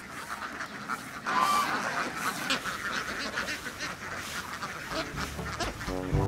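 A large flock of domestic ducks quacking all together, a dense, continuous chatter of overlapping calls. Brass music starts up near the end.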